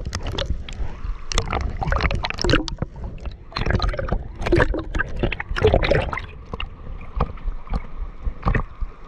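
Water sloshing and slapping against a camera held at the surface, with gurgling as it dips in and out of the water in irregular splashes.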